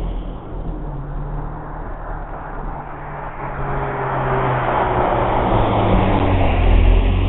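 Road traffic passing close by: car engines humming under the rush of tyres, swelling to a peak near the end.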